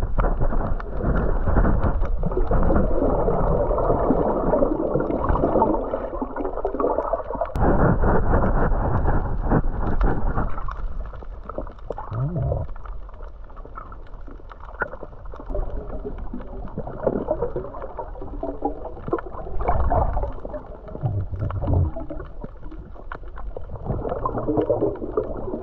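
Muffled water sound as heard by a submerged camera: water sloshing and gurgling around it, heavier in the first few seconds and lower after, with a few dull low thumps.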